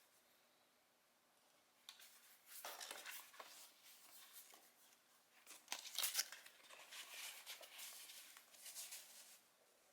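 Faint rustling, crinkling and tearing of packaging being handled as a shoebox is unpacked. It starts about two seconds in and comes in scattered bursts, loudest around the middle.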